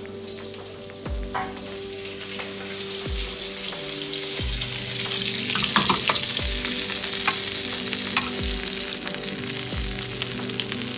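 Duck breasts frying skin-side down in a hot skillet, the skin sizzling with crackles as its fat renders. The sizzle grows louder over the first several seconds as the pan heats.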